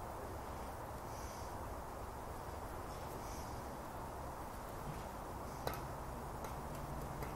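Steady low background noise with a faint high chirp repeating about every two seconds and one sharp click late on.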